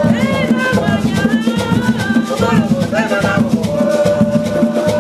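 Garifuna hand drums played in a fast, dense rhythm, with maracas shaking and voices singing over them, holding one long note in the second half.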